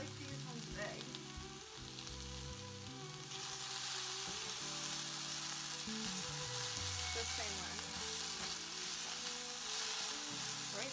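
Cabbage and celery frying in a nonstick pan with almond milk, sizzling steadily while a silicone spatula stirs them. The sizzle grows louder about three seconds in.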